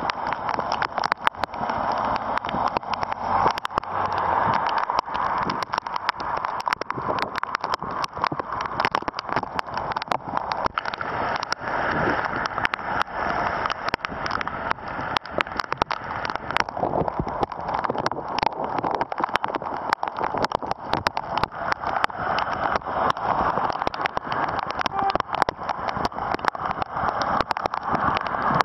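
Heavy rain pouring steadily onto a wet street, with many sharp drops ticking close by. A car hisses past on the wet road about halfway through.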